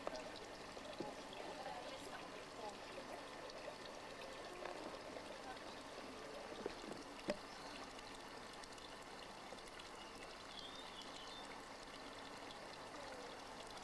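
Faint garden ambience: a steady, trickling-water-like hiss with low, indistinct voices and a light click about seven seconds in.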